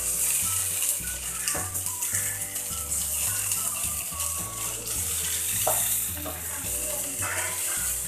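Chopped onion and tomato sizzling in a frying pan, a steady hiss, while a wooden spatula stirs and scrapes through them, with a few sharp knocks of the spatula on the pan.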